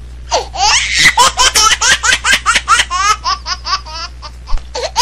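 Rapid, high-pitched laughter, several short laughs a second, over a steady low hum.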